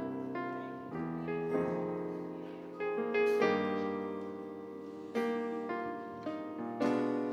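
Slow piano chords, a new chord struck every second or two and left to ring and fade.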